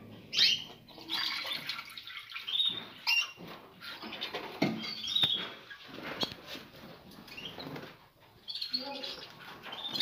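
Small caged songbirds chirping and fluttering their wings, with a few sharp knocks from the wire cage being handled.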